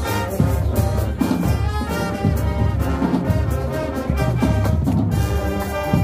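High-school marching band playing: brass horns sounding chords over a steady beat of drums.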